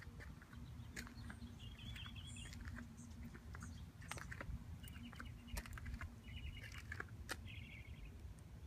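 Faint outdoor ambience: small birds chirping in short fluttering phrases, about four or five times, over a low wind rumble, with scattered light clicks.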